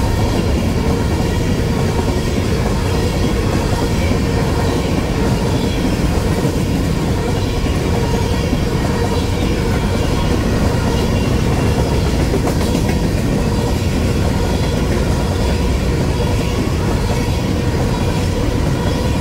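Empty covered grain hopper cars of a freight train rolling past at about 50 mph: a steady loud rumble of steel wheels on the rails. A faint steady tone sits over the rumble.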